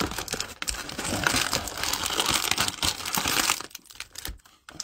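Plastic cello-wrapped trading card packs crinkling as they are pulled out of their cardboard box, a dense crackle that dies down to a few clicks near the end.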